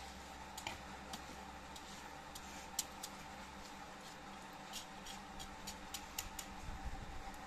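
Rice cooking for plov in a cast-iron kazan of boiling oil and water, giving off irregular sharp crackles and pops, about two a second, over a faint steady hiss.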